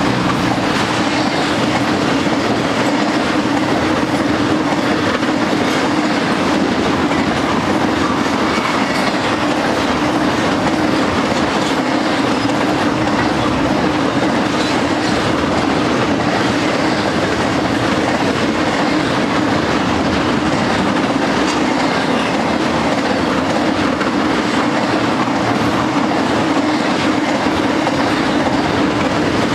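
Intermodal freight train's cars, loaded with highway trailers, rolling steadily past on steel wheels: a continuous rail noise with a low hum and faint scattered clicks of wheels over the rail.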